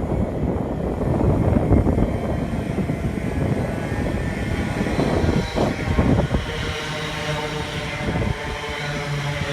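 Electric passenger train running into the platform: a heavy rumble of wheels on the track, then, from about two-thirds of the way in, a steady electric motor whine made of several held tones.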